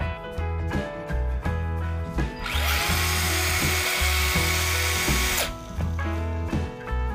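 Tamiya TT-02D RC car's electric motor and gear drivetrain spinning up with a short rising whine, then whirring at speed for about three seconds before cutting off suddenly. Background music with a steady beat plays throughout.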